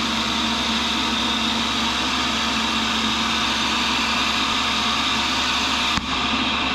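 Cincinnati tool and cutter grinder running free with its wheel spinning and not cutting: a steady motor hum and whine. A single click comes about six seconds in.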